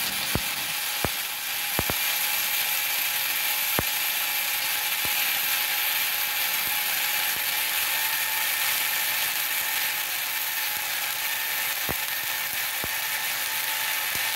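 Gasless flux-core MIG welding arc from a Multipro MIG-MMA/TIG 160 A-SC inverter welder, burning continuously as a steady hiss with a few sharp pops. The wire is on the correct polarity, with the ground clamp on positive, and the bead is running cleanly.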